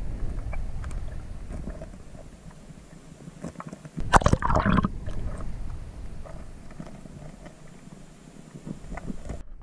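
River water heard through a camera held underwater: a muffled low rumble with scattered small clicks, and a loud splashing burst about four seconds in.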